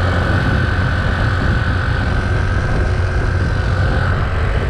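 Honda C90 step-through moped's small single-cylinder four-stroke engine running steadily at cruising speed, mixed with an even rush of wind and road noise.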